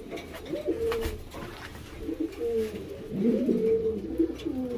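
Several domestic pigeons cooing, with overlapping low warbling coos repeating throughout.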